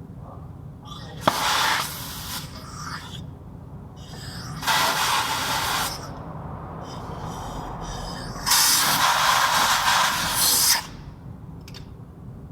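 Three bursts of pressurised spray hissing, the last and longest about two seconds, with a sharp click at the start of the first.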